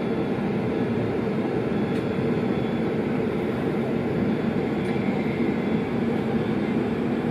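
Steady low engine rumble heard from behind glass on an airport apron, with a faint high whine over it, as an Airbus A380 taxis close by.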